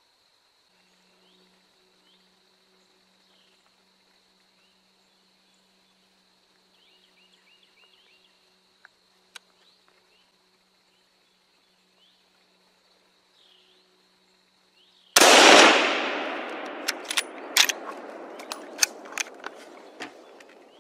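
A single gunshot about fifteen seconds in, very loud, its echo rolling away over several seconds, with a run of sharp cracks and snaps after it. Before the shot only a faint steady high whine and a few faint chirps.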